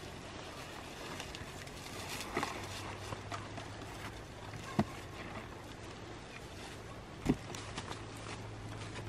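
Woven bamboo tray handled over dry leaves: light rustling and scraping with a few sharp knocks, over a steady low hum.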